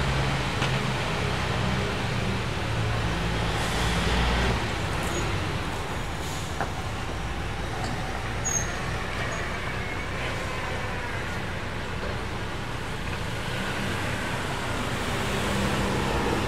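A heavy truck's engine running at low revs as it manoeuvres, with a car driving past near the end.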